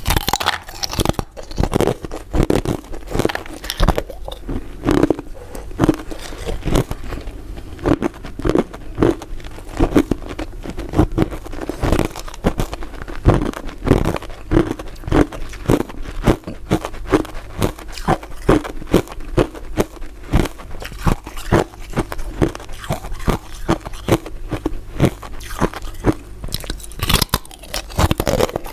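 Someone biting and chewing hard, crisp crystal ice dessert pieces: a continuous stream of sharp crunches and crackles, several a second.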